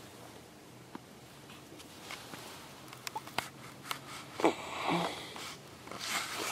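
Soft, scattered crunches of packed snow from someone moving into a snow cave, with a louder breathy sound about four and a half seconds in.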